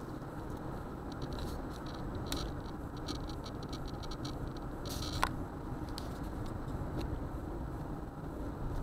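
Car driving through a dust storm, heard from inside: steady road and wind noise, with many small ticks from blown sand and grit striking the windshield and body, thickest in the first five seconds, and one sharper click a little past the middle.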